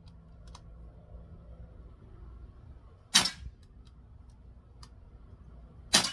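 Two sharp shots from a Daisy Powerline 415 CO2 pistol, about three seconds apart, the second near the end. Faint short ticks follow each shot.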